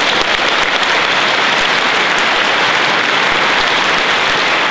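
A large crowd of school pupils applauding, a dense, steady clapping.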